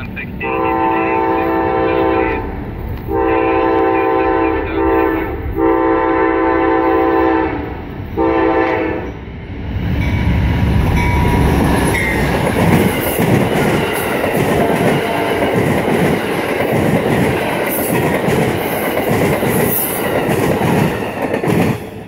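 Amtrak GE P42DC Genesis locomotive's air horn sounding three long blasts and a short one, followed by the train passing at speed close by: a loud rush of wind and wheel-on-rail noise with the clickety-clack of the cars over rail joints, which drops off right at the end.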